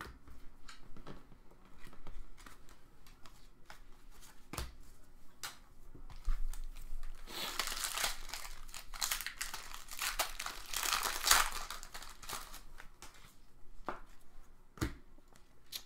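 Trading card pack wrappers being handled: a few light clicks and rustles, then from about seven seconds in several seconds of crinkling and tearing as a foil pack is ripped open.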